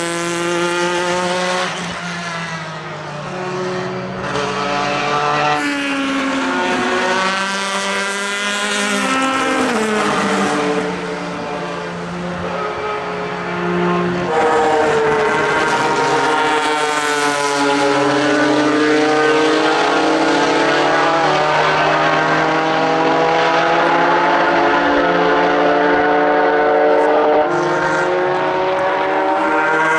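Pilbeam MP93 LMP2 prototype's JPX/Mader V6 racing engine at speed, its pitch climbing through the revs and dropping at the gear changes. About a third of the way in it drops sharply, as on braking and downshifting, then gets louder and holds at high revs for the second half.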